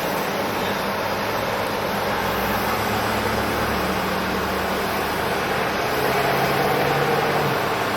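Steady engine and traffic-like noise, with a low hum that shifts in pitch a couple of times. No pile-hammer strikes are heard.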